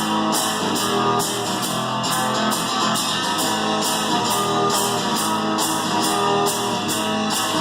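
Live two-piece band playing: a strummed guitar over steady cajon and cymbal percussion, striking at an even beat of about two to three hits a second.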